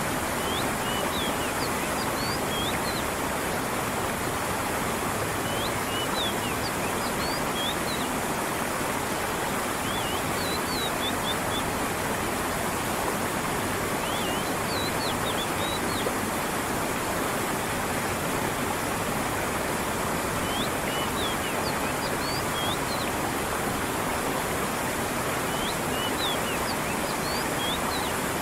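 Steady rush of a stream's flowing water, with a small bird giving short clusters of high chirps every four to six seconds.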